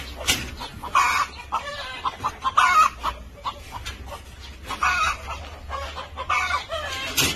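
Hens clucking in a series of short squawking calls, with a few sharp metallic clicks from a wire cage door being handled.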